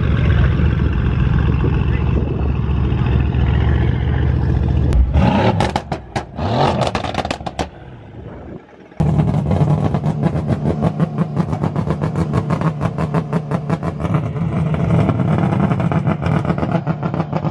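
Mercedes-AMG C63 coupe's V8 exhaust running loud and deep as the car rolls by, broken off about five seconds in. After a short break, a car engine runs steadily with a fast, even pulsing.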